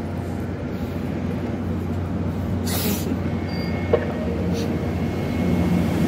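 NJ Transit passenger coaches rolling past at close range: a steady rumble of steel wheels on rail under a low hum. There is a brief hiss about three seconds in and a single sharp click about a second later.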